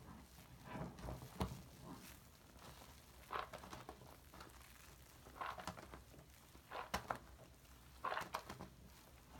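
Soapy sponge squeezed and kneaded in a sink full of shaving-cream lather: faint wet squishes and crackling foam every second or two, with a couple of sharper clicks.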